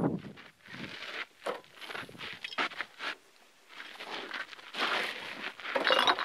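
Footsteps of boots crunching on gravelly dirt, mixed with irregular rustles and crinkles of plastic rubbish being handled. The loudest burst comes just before the end.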